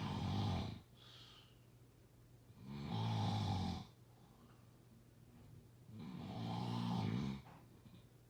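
Snoring: three snores about three seconds apart, each a low buzzing breath lasting a second or so.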